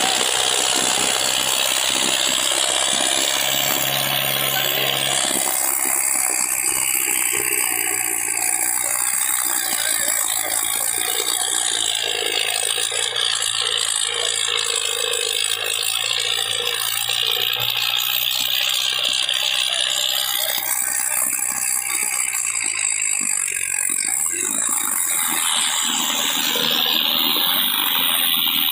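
Tractor diesel engine labouring under heavy load while its rear tyres spin in loose sandy soil, dragging a disc harrow, with a steady mechanical rattle.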